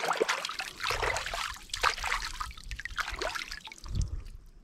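Hands being washed in water: irregular splashing and trickling.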